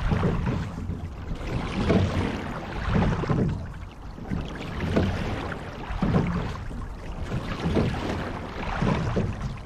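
Rowing shell under way on the water: water rushing and splashing along the hull, swelling and easing in a repeating rhythm with low knocks every second or two as the oars take each stroke.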